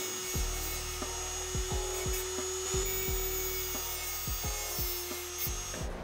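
Handheld rotary tool spinning a cut-off wheel at steady speed, with a steady whine, while the end of a piece of piano wire is ground against the wheel to round it off. The whine stops near the end.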